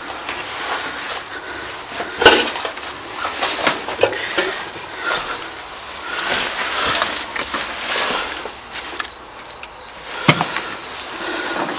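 Footsteps crunching and scraping over dead leaves, rubble and broken glass and pottery, with irregular cracks and crunches; the sharpest crack comes about two seconds in, another near the end.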